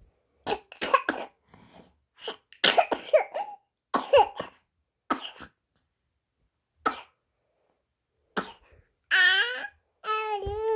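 Six-month-old baby fussing: a string of short, breathy grunts and cough-like sounds, then near the end two wavering, high-pitched whining cries.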